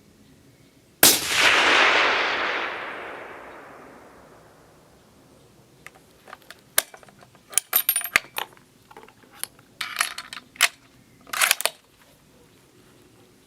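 A single shot from a suppressed 6.5x55 bolt-action rifle about a second in; the report fades out over about three seconds. From about six seconds in comes a run of sharp metallic clicks and short rattles, the sound of the bolt being worked to eject the spent case and chamber the next round.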